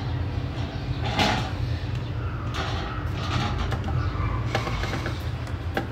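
Handheld electric screwdriver working the rear screws of a speaker, in short runs mixed with clicks and scrapes as the speaker is handled, with a sharp click near the end.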